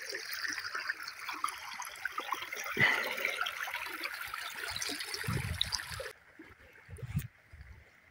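Water running and trickling along a narrow earthen irrigation channel, a steady rushing hiss that stops abruptly about six seconds in. A few low thumps sound around five to seven seconds.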